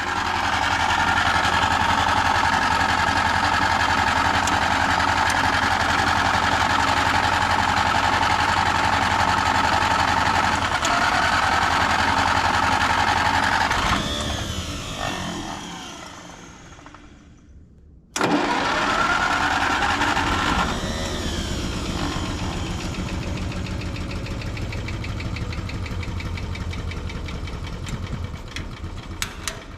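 Electric starter cranking a diesel tractor's gasoline pony starting engine, which is hard to start and keeps turning over without catching. The cranking winds down about 14 seconds in, starts again abruptly a few seconds later and runs on, slowly fading near the end.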